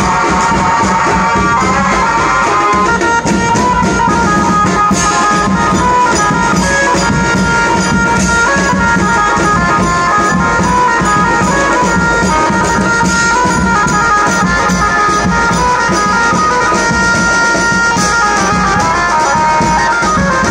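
Loud live band music from a street procession: a held, reedy melody over dense drumming and cymbals, playing without a break.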